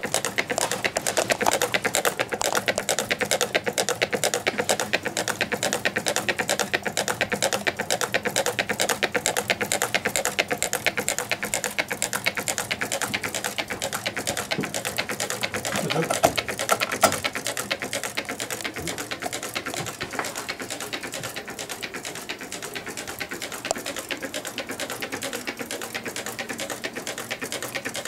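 Meccano-built twin-cylinder Stirling engine running. Its displacers land at each end of their travel in a rapid, even clatter of clicks, with a few louder knocks past the middle.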